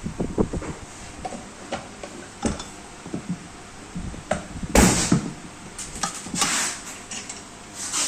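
Irregular knocks and clicks of things being handled, with a louder thud about five seconds in and a brief rush of noise soon after.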